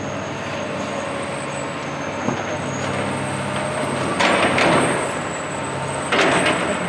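A steady engine-like din, with two short hissing surges about four and six seconds in.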